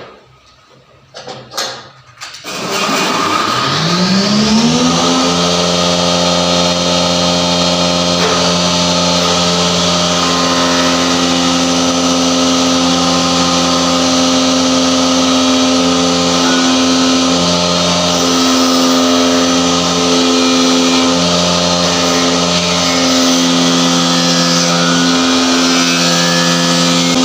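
A woodworking machine's electric motor is switched on after a couple of clicks, spins up over about two seconds, then runs at a steady speed with a loud, even hum.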